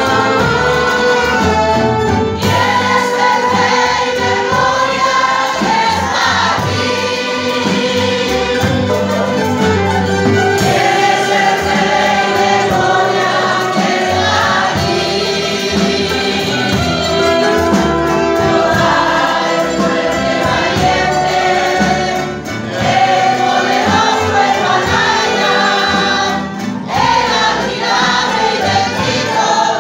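A church string band of mandolins, banjo-mandolins and guitars strumming a hymn while many voices sing along.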